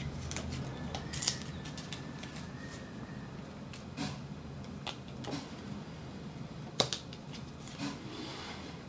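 Handheld adhesive tape runner worked along the flaps of a sheet of patterned cardstock: scattered sharp clicks and light scraping of the dispenser on the paper, the sharpest click near the end.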